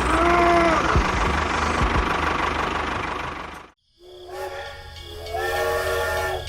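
Steady mechanical running noise with a short whistle-like tone in the first second. It cuts off abruptly, and after a moment a sustained multi-note whistle sounds, like a train horn.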